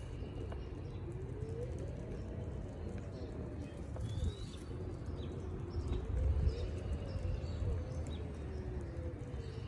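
Self-balancing hoverboard's hub motors whining, the pitch rising and falling several times as it speeds up and slows, over a low rumble of its wheels rolling on concrete.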